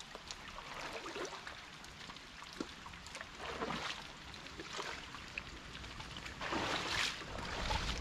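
Legs wading through shallow river water, sloshing and splashing irregularly about once a second, with a longer, louder slosh near the end, over the steady rush of the flowing river.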